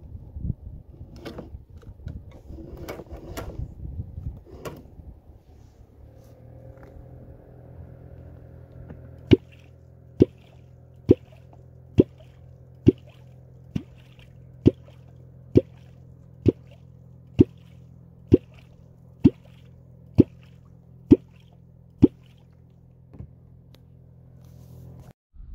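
A clonc (kwok), the wooden catfish-calling stick, is struck into the water about once a second, about fifteen sharp hollow 'clonk' plops in a row, to call Wels catfish up to the bait. A steady low hum runs under the strokes.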